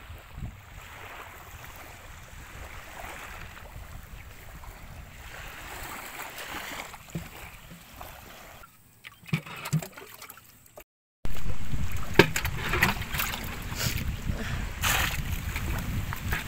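Calm sea water lapping and trickling around a wooden outrigger canoe, with a few knocks and splashes as it is pushed off. After a sudden break about eleven seconds in, louder water sloshing with a low rumble comes from out on the water.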